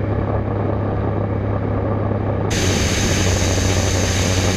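Walter turboprop engine and propeller of a Thunder Mustang running steadily at cruise power, a loud, even drone with a deep hum. It is heard first inside the cockpit, then, about two and a half seconds in, from outside the airframe, where air rush and a high steady whine join it.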